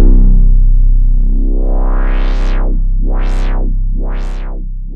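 Synthesizer drone on a deep low note, its filter sweeping the tone bright and dark again about once a second, slowly fading toward the end.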